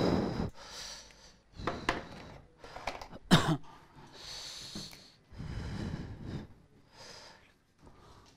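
A person breathing and sniffing close to a head-worn microphone, in a string of short, irregular noises. The loudest and sharpest comes about three seconds in.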